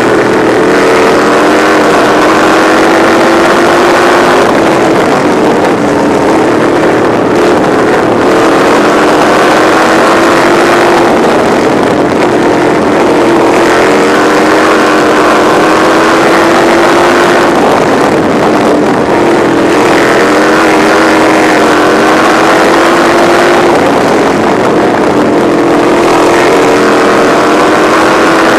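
Onboard sound of a winged sprint car's engine under hard throttle in a race, its pitch climbing and then dipping briefly every five or six seconds as the car goes through the turns, with a steady rush of wind.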